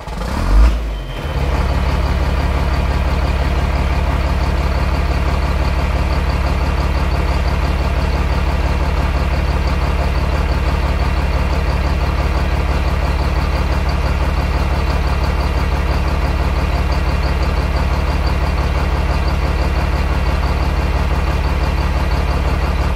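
Heavy vehicle engine running steadily at one constant pitch, an even low drone with fine regular pulsing, after a brief swell at the start.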